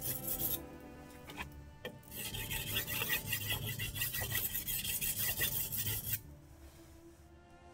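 Damascus kitchen knife blade being stroked back and forth on a wet whetstone: quick gritty scraping, a short run at the start and a longer run from about two seconds in to about six seconds, the blade pressed flat to the stone by the fingers.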